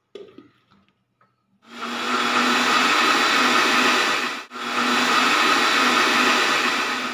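Electric mixer grinder with a stainless steel jar blending banana and ice cream into a milkshake: a loud, steady motor run that cuts out for a moment about halfway and then starts again.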